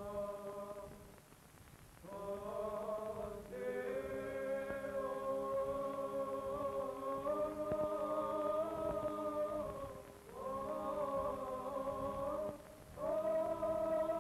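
Byzantine chant sung by a male choir: long held notes in several phrases, with brief pauses about a second in, near 10 s and near 12.5 s.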